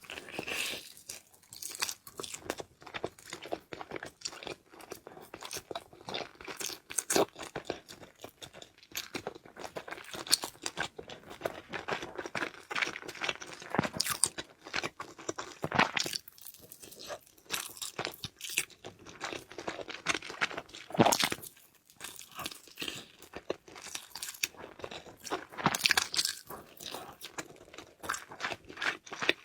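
Close-up eating sounds: a person biting and chewing crunchy food, a steady run of irregular crisp crunches with no talking.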